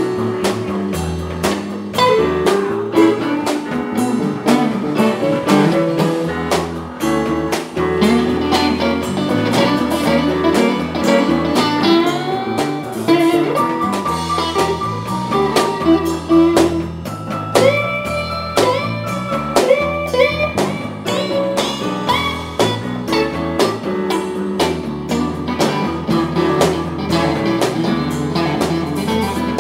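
A live rock-blues band plays an instrumental passage: guitar over drum kit, bass and keyboards, with some held notes about two-thirds of the way through.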